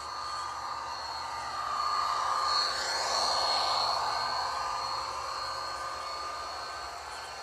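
Model Amtrak F40PH train with passenger cars running past on model track: a whirring rush of wheels on rails that swells, loudest about three seconds in, and fades as the cars go by.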